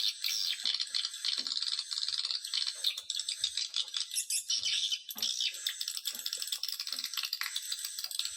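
Recorded swiftlet call: a dense, continuous rapid twittering rattle of many high chirps. It is the lure call played in swiftlet houses to draw the birds in to roost and nest.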